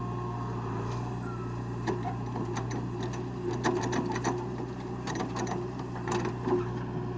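Diesel engine of a JCB 3DX backhoe loader running steadily, with irregular sharp clicks and knocks over it from about two seconds in.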